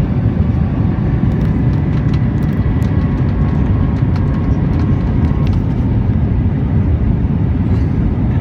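Airbus A319 cabin noise heard from a window seat: a steady, deep rumble of engines and rushing air, with a faint steady whine above it.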